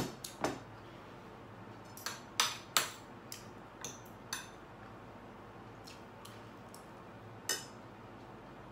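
A ceramic mug set down on a table, then a spoon and fork clinking and scraping on a plate in scattered sharp taps. The loudest taps bunch together about two to three seconds in.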